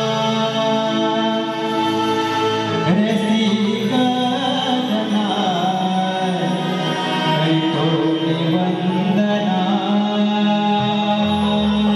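Harmonium holding long steady chords, with a singer's voice sliding between notes over it: the opening of a Marathi devotional stavan in Konkan shakti-tura folk style.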